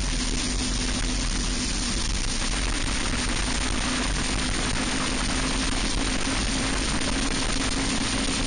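Onboard sound of a racing kart's Briggs & Stratton Animal single-cylinder four-stroke engine running hard at a steady high speed, with a constant rush of wind and tyre noise over the microphone.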